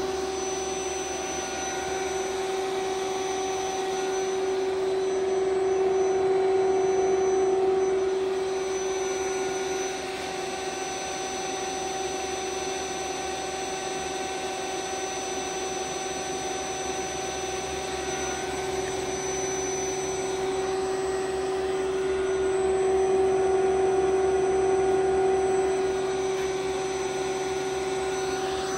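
Indramat servo drive and power supply under test, spinning a bench servo motor: a steady electric whine over a whirring hiss, getting louder twice for a couple of seconds.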